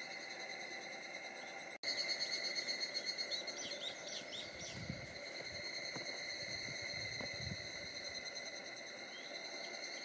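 Cicadas droning steadily in a high, ringing chorus. After a brief break about two seconds in, a louder, rapidly pulsing call comes for a second or two, and a few short bird chirps follow.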